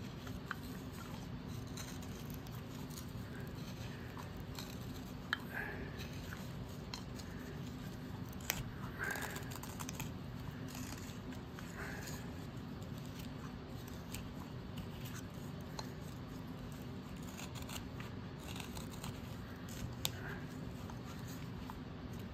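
Wood carving knife slicing shavings from a small wooden bird blank: short, irregular scraping cuts and clicks over a steady low hum.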